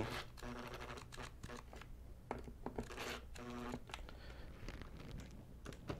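Cordless power screwdriver run in three brief whirs, driving 6-32 screws into their nuts on the printer's base plate, with small clicks of handling between. The bursts are kept short to snug the screws down just a little, so as not to overtighten them into the melamine.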